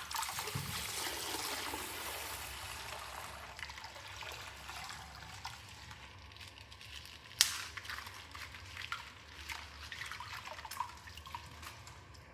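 Rustling and crinkling of toy packaging being opened by hand, strongest at first, with one sharp click about seven seconds in and a few smaller clicks later.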